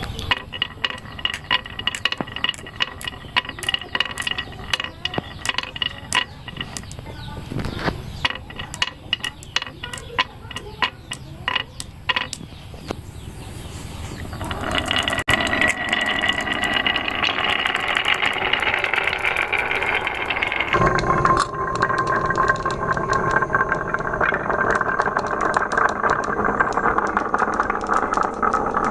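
Marbles rolling and clattering down a wooden marble run: many quick clicks and knocks at first, thickening about halfway into a continuous rolling rattle.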